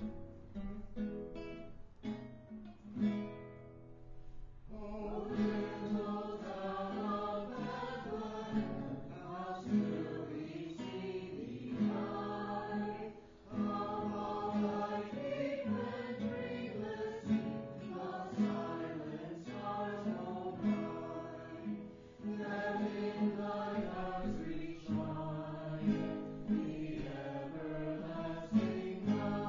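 Acoustic guitar strumming chords alone for about four seconds, then a small group of men and women sings a Christmas carol together with the guitar.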